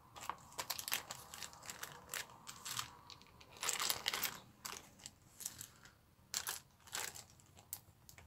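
Clear plastic bag crinkling and rustling as it is handled, in irregular crackles, busiest about four seconds in.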